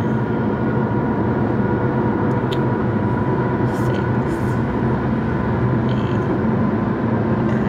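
Steady car cabin noise from driving: a constant low road and engine rumble with no break.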